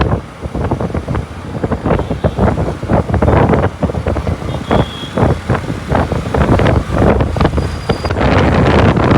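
Wind buffeting the microphone in uneven gusts over the low rumble of a moving vehicle and highway traffic.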